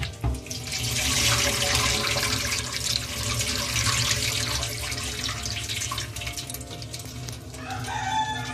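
Cold tap water running and splashing onto boiled macaroni in a plastic colander in a steel sink, rinsing and cooling the pasta. The splashing thins out near the end, as a few pitched notes come in.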